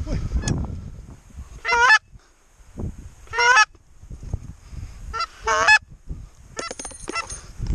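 Canada goose honks in five short, loud bunches a second or two apart, the last a quick run of calls. Low rustling sounds between them.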